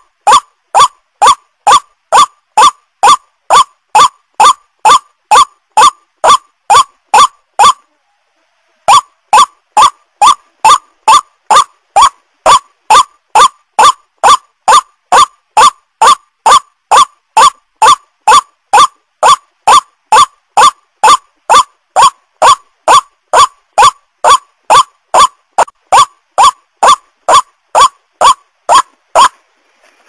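White-breasted waterhen's call, played as a lure: a short falling call repeated steadily about two and a half times a second. There is a break of about a second about eight seconds in, then the calls resume.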